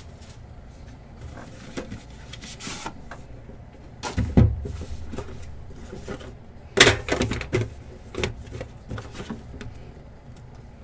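A Panini Immaculate football card box being opened and handled: scattered light clicks and rustles of the lid and packaging, with two louder knocks about four and seven seconds in, the second the loudest.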